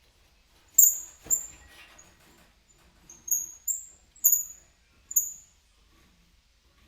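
A series of about seven light metal-on-metal knocks at irregular intervals, each a short high-pitched ring that dies away quickly.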